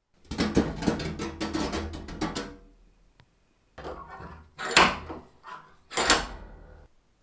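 Rusty metal parts of an antique potato peeler being handled and set into a bench vise: about two seconds of dense rattling and clatter, then several separate metallic knocks with a short ring, two of them loudest.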